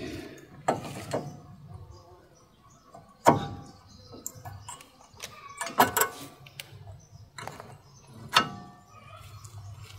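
New brake pads being pushed into the spring clips of a front brake caliper bracket: a few sharp metal clicks and clacks, the loudest about three, six and eight and a half seconds in.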